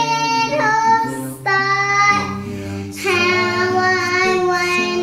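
A song: a high voice singing long held notes that slide between pitches, over a steady instrumental accompaniment, with short breaks between phrases.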